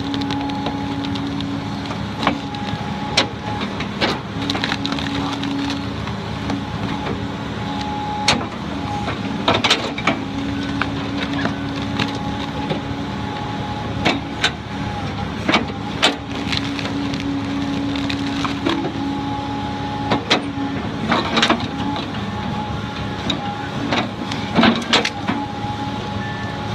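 A heavy machine's engine running steadily, with frequent sharp cracks and knocks from the work at irregular intervals.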